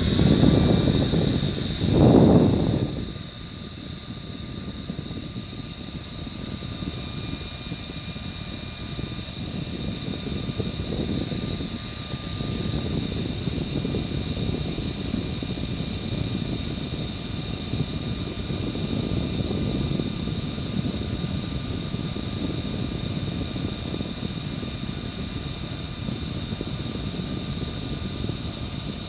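Small electric fan running: a steady whir of moving air with a constant high motor whine. Two loud rushes of noise come in the first three seconds before it settles.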